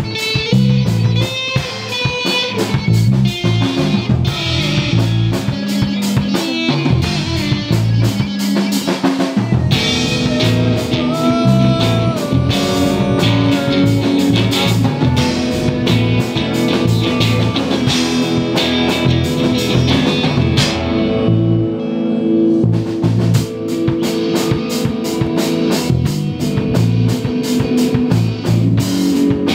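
Live rock band playing: electric and acoustic guitars over bass and a drum kit, with a steady beat.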